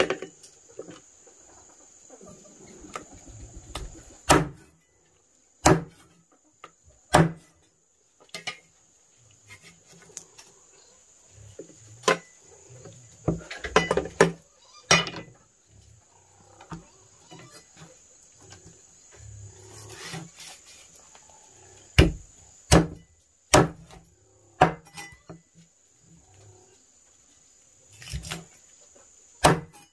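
Steady high-pitched insect drone with sharp knocks at irregular intervals, one to a few seconds apart.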